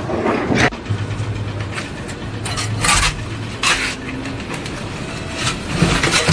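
An engine running steadily, with several sharp knocks and clatters over it.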